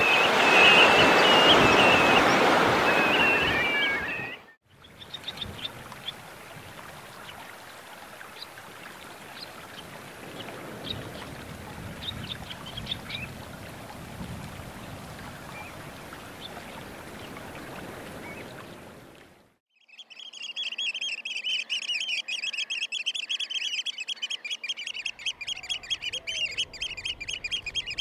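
Waves breaking on a shingle and seaweed shore, with a few wavering shorebird calls over them. After a cut, quieter surf with faint short calls. Then, from about two-thirds of the way in, a flock of Eurasian oystercatchers piping, a dense stream of rapid high calls.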